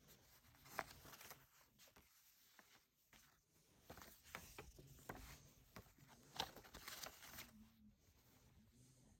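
Faint crackling and rustling of a folded paper setup booklet being unfolded and handled, in scattered short bursts.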